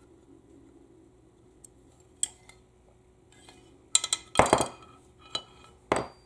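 Small steel transmission parts clinking and knocking against each other and the bench as they are worked out of their bores: one click about two seconds in, a cluster of sharp clinks around four seconds, and another near the end.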